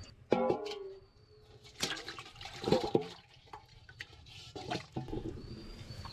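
Water sloshing and splashing in a metal bowl as it is filled from the canal and a small catfish moves in it, with a few knocks of the bowl.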